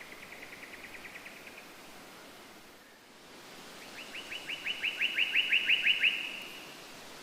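A bird singing two trills of short, evenly repeated notes, about seven a second; the first fades out early and the second, louder one starts about four seconds in. A steady hiss lies underneath.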